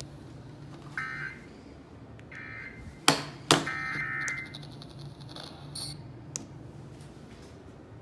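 A Midland emergency weather radio's speaker playing the EAS end-of-message signal: three short buzzing data bursts in a row that close the national test alert. Two sharp knocks from the radio being handled come between the second and third bursts.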